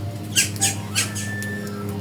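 A bird giving a few short, high chirping squawks in quick succession, over a steady low hum.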